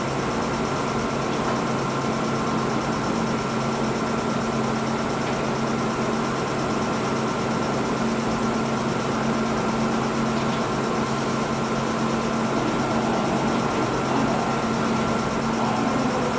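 Kintetsu 30000 series Vista EX electric train idling, its equipment and air-conditioning giving a steady hum with several constant tones and no change in pitch or level.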